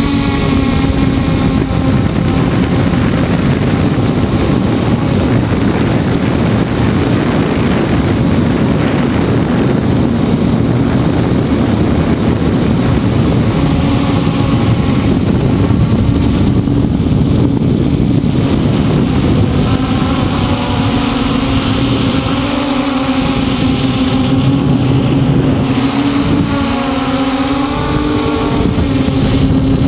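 Hexacopter's six electric motors and propellers humming steadily, heard from its onboard camera with wind rushing over the microphone. The higher tones waver and shift pitch in the second half as the motors change speed.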